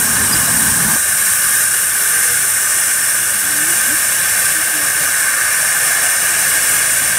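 Safety valve blowing off on a vintage 15-inch gauge steam locomotive: a loud, steady hiss of escaping steam, the sign that the boiler is at full working pressure while the engine stands.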